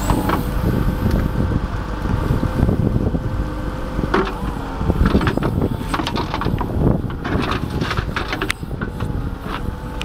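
Kubota backhoe's diesel engine running steadily, with a rough rumble of wind on the microphone and scattered short knocks and clicks.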